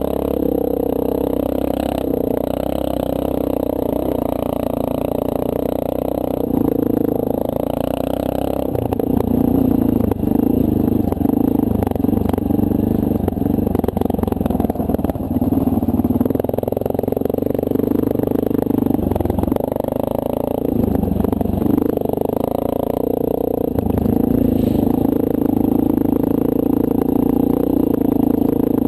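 Honda CRF230L dual-sport motorcycle's single-cylinder four-stroke engine running steadily while riding a rough dirt trail, its pitch dipping and rising again with the throttle about two-thirds of the way through. In the middle there is a stretch of rattling and clattering from the bike jolting over the rough ground.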